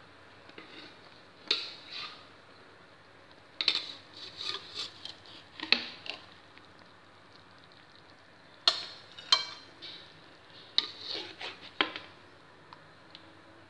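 A metal spoon clinking and scraping against an aluminium wok as the cooked fish is scooped out, in four separate bursts of sharp knocks and short scrapes.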